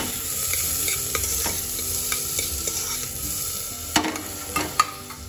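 Chopped onions sizzling in hot ghee in a pressure cooker, stirred with a steel ladle that ticks and scrapes against the pot, with two sharper knocks of the ladle near the end.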